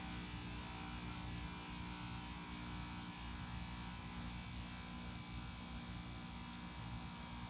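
Steady, even hum with a buzz over it, unchanging throughout.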